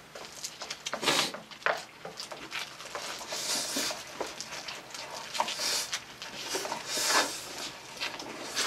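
Close-up eating noises, heard in irregular bursts: chewing and smacking on a mouthful of lettuce wrap, and slurping food straight from a styrofoam bowl.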